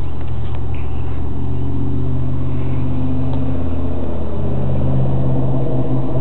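A steady, loud low mechanical hum from a running motor, unbroken throughout and a little louder near the end.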